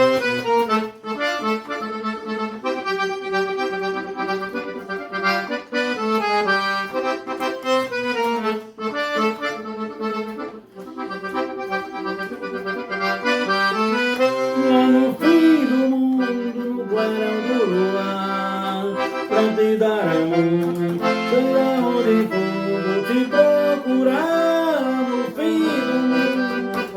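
Accordion playing the instrumental introduction of a song: a melody over steady, held bass notes.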